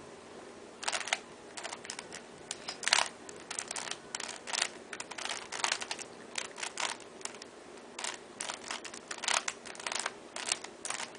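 A loose plastic Rubik's Cube being turned, its layers clicking and clacking in quick irregular runs with short pauses between moves, starting about a second in.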